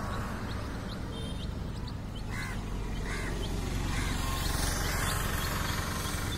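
Broiler chicks peeping in short, high cheeps. From about two seconds in, an adult hen gives four lower clucking calls, just under a second apart, over a steady low background noise.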